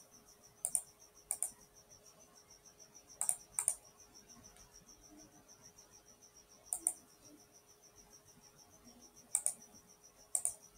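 Sharp clicks of a computer mouse, about eight of them spread unevenly, with two close together like a double-click. Underneath runs a faint, steady, high-pitched electrical pulsing.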